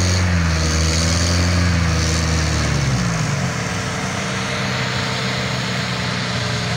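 An off-road 4x4's engine running at high revs, which drop about three seconds in before it holds a steady lower note.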